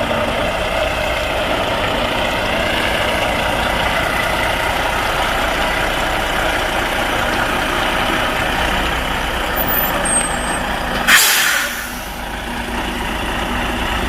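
Semi truck's diesel engine running steadily as the rig is backed up to a loading dock, then a loud, short air-brake hiss about eleven seconds in as the brakes are set.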